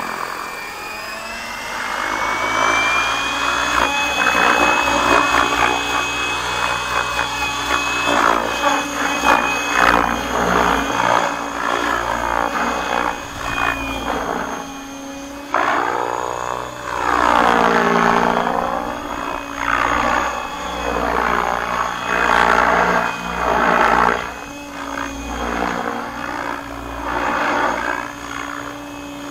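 Align T-Rex 700X electric RC helicopter, its 850MX brushless motor and rotor blades whining as it spools up at the start, the pitch rising over the first couple of seconds and then holding at a low headspeed of about 1700 rpm. Through the flight the rotor sound runs continuously, swelling and shifting in tone as the helicopter moves about.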